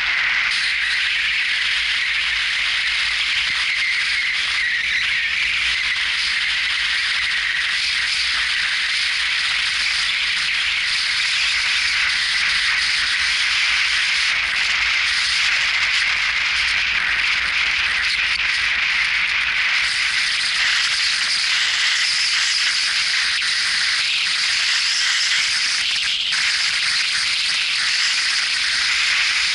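Car driving along a country lane, heard through a car-mounted action camera: a steady, rattly hiss of road and wind noise with no let-up.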